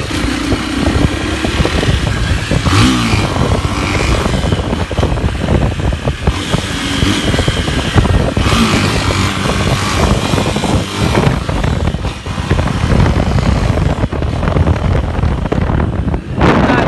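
Motorcycle engine running and revving while riding at speed, mixed with wind noise on the microphone, with a louder surge near the end.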